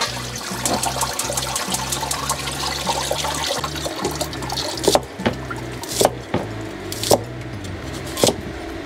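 Water splashing into a stainless steel stockpot. From about halfway, a cleaver chops a carrot against a wooden chopping board with single sharp knocks, roughly once a second.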